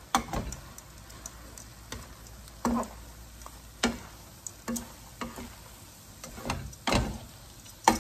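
Tongs and a wooden spatula clacking and scraping against a frying pan as rice-vermicelli pad Thai is tossed, in irregular strokes, over a faint sizzle. The loudest clacks come about three seconds and seven seconds in.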